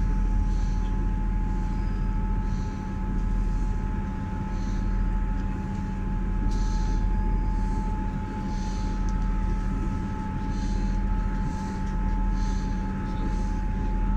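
Passenger train running at speed, heard from inside the carriage: a steady low drone with a constant faint whine, and short hissy surges every second or so.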